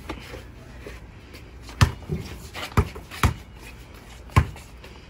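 A basketball dribbled on brick pavers: four sharp bounces, unevenly spaced, between about two and four and a half seconds in.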